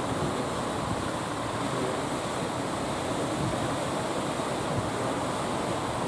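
Rough sea surf: a steady wash of breaking waves, with wind.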